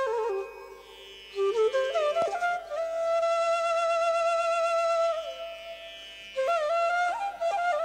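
Carnatic music on flute: slow phrases that slide up into long, slightly wavering held notes, the longest in the middle, over a faint steady drone.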